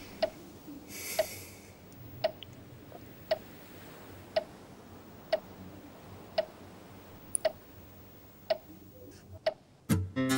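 Clock ticking steadily, about once a second. A short rustle comes about a second in.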